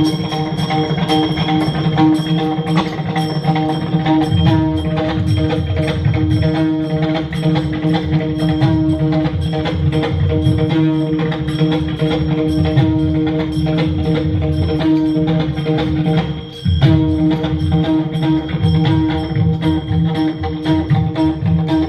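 Kirtan music, instruments with percussion over a steady held tone. It drops out briefly about sixteen and a half seconds in, then carries on.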